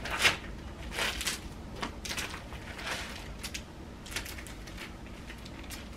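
Thin plastic packaging crinkling and tearing as a small mail packet is ripped open by hand and its contents pulled out, in irregular bursts of rustling.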